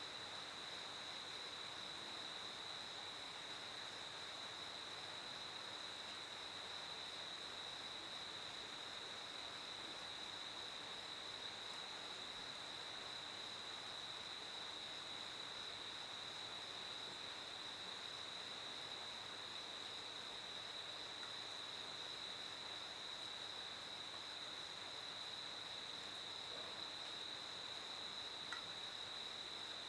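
Crickets chirping steadily in an unbroken high-pitched trill, over faint background noise.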